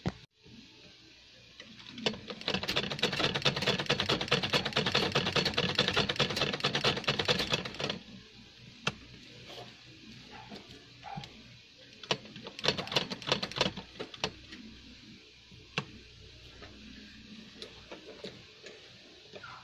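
Sewing machine stitching in a run of rapid, even clicking for about six seconds, then a shorter burst of stitching, with a few single clicks of the machine and fabric being handled in between.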